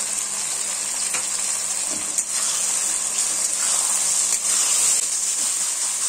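Onion, capsicum and grated tomato sizzling in butter in an iron kadai, a steady hiss, with a metal spatula scraping and tapping the pan a few times as the mix is stirred.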